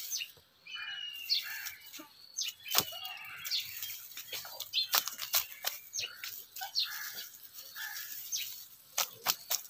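Dry garlic stalks rustling and crackling as they are picked through by hand, with irregular sharp snaps. Small birds chirp now and then.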